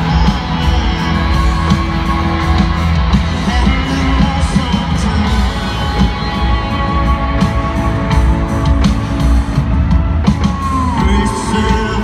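Live country-rock band playing through a stadium PA, with a male country singer's vocal over drums and guitars, heard from high in the arena stands.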